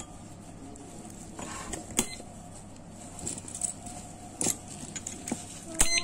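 Alarm padlock and its keys being handled: a few sharp metal clicks with light rattling between, the loudest click just before the end. No alarm siren is sounding.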